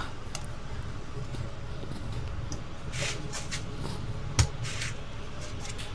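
A screwdriver working the screws of an opened HP 240 G6 laptop: faint scraping and small clicks of the tool and the plastic chassis over a low steady hum, with one sharp click about four and a half seconds in.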